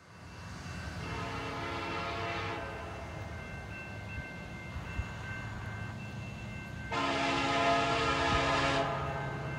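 Canadian National freight train's air horn sounding two long blasts, the first about a second in and the second about seven seconds in, over the low rumble of the approaching diesel locomotives. The blasts are the horn signal for the grade crossing ahead.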